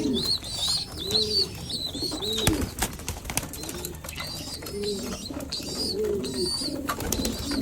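Racing homer pigeons cooing over and over, mixed with higher, chirping bird calls, and a sharp knock about two and a half seconds in.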